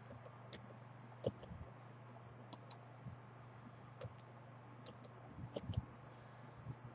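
Faint, scattered clicks of a computer keyboard and mouse as numbers are typed into a spreadsheet, a short run of keystrokes a little past the middle, over a low steady hum.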